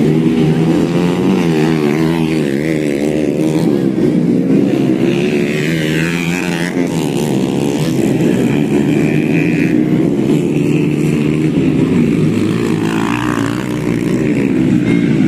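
Several modified grasstrack motorcycle engines running and revving at once, their pitches wavering up and down without a break during pre-race warm-up.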